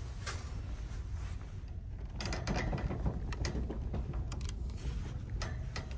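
Shopping cart being pushed: the wire basket rattles and clicks irregularly over a low rolling rumble, with the rattling starting about two seconds in.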